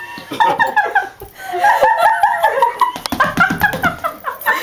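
People laughing and giggling, mixed with bits of talk.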